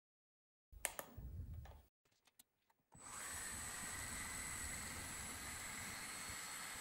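A few knocks and clicks, then about three seconds in a homemade CNC milling machine starts up with a steady mechanical hiss and a constant high whine over it.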